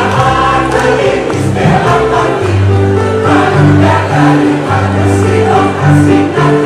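Mixed choir of men and women singing in parts, holding long notes, with electronic keyboard accompaniment.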